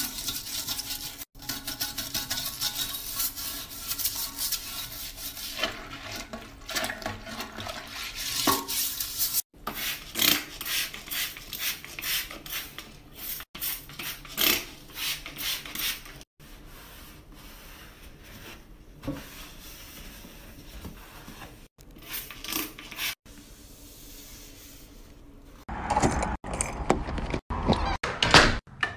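Toilet cleaning: a toilet brush scrubbing the bowl and a trigger spray bottle squirting cleaner, in short cut-together clips of rubbing and spraying strokes. Louder knocks and clatter near the end.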